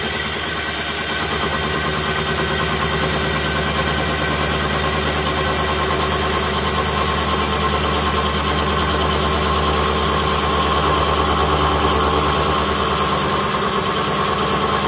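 Vertical milling machine running with a 1-inch cutter taking a slow, steady cut into the end of a tube to give it a curved profile. A steady machine hum and whine.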